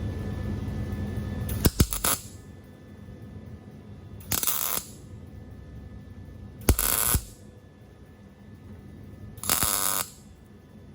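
Electric arc welder laying short tack welds: four brief bursts of crackling arc, each about half a second, a couple of seconds apart. Before them a steady low hum stops about two seconds in, followed by a few sharp clicks.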